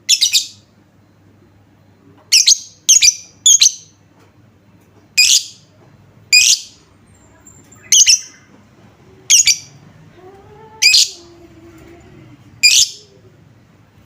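Lovebird giving about ten loud, shrill single calls, each brief, spaced irregularly a second or two apart.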